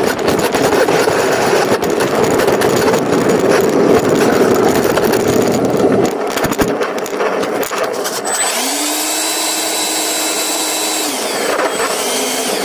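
Model jet rolling on an asphalt runway, heard from a camera on board: a rough, rattly rumble of wheels and rushing air for the first half. About eight seconds in, a steady whine from the model's ducted fan rises, holds for a couple of seconds and winds back down.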